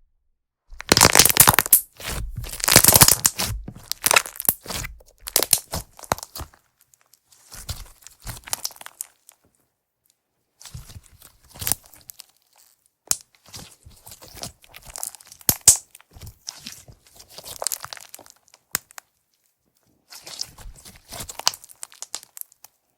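Slime being squished and pressed by hand, making crunchy, crackling sounds: denser and louder in the first few seconds, then quieter scattered crackles with a few sharp pops, and a silent pause in the middle.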